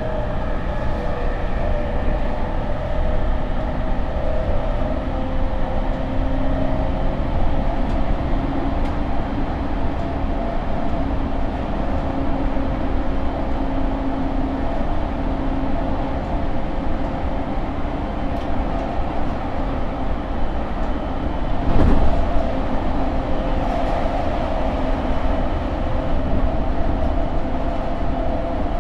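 JR East E231 series 800-subseries commuter train with Mitsubishi IGBT VVVF traction equipment running between stations, heard inside the car: a steady traction-motor and inverter whine over the rumble of the wheels on the rails. One loud clunk comes about three-quarters of the way through.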